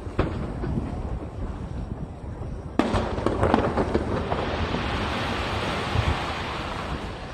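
Fireworks bursting over the sea with low rumbling booms. A sharp report about three seconds in sets off a flurry of cracks, which runs into a long, dense crackle that fades near the end.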